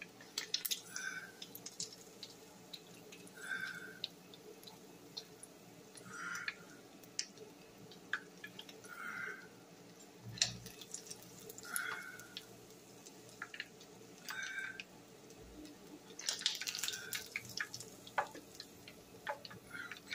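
Chicken wings deep-frying in peanut oil in a cast-iron skillet: the oil sizzles with scattered crackles and pops while the wings are turned and lifted out with tongs.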